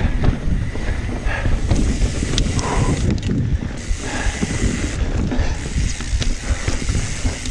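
Mountain bike rolling down a wet dirt-and-rock trail: continuous tyre rumble with many small clicks and rattles from the bike.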